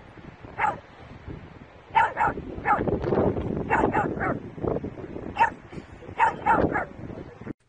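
Pug barking repeatedly in short calls, which come in quick clusters of two or three.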